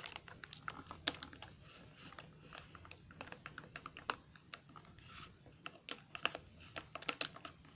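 Chopsticks stirring a sticky glue-and-shampoo slime in a bowl: a run of quick, irregular clicks and taps.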